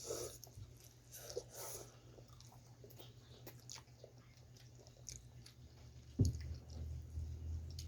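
Soft chewing and biting of pizza, with faint scattered mouth clicks over a steady low hum; a single thump about six seconds in.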